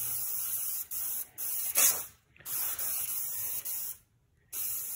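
Aerosol spray paint can spraying in several hissing bursts with brief pauses between them, with one longer pause about four seconds in.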